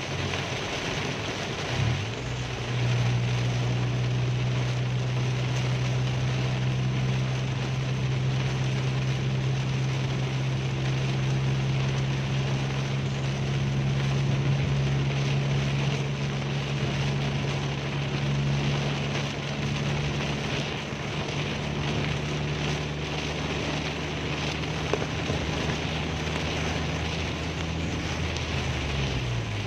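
Steady drone of a car's engine and tyres at highway speed, heard inside the cabin, under an even hiss of heavy rain and wet-road spray. The drone's pitch shifts about two seconds in and again near the end.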